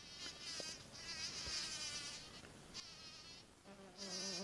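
Flying insects buzzing close by: a high, wavering buzz that fades and comes back several times, joined near the end by a second, lower and steadier buzz.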